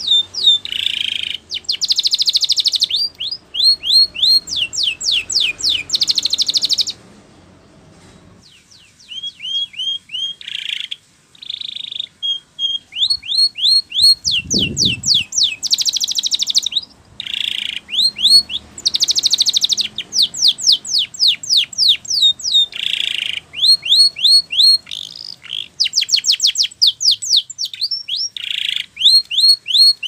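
Domestic canary singing long trills of rapid repeated notes, each sweeping downward, alternating with harsher buzzy phrases. The song breaks off for about two seconds at around seven seconds in, and a brief low thump comes about halfway.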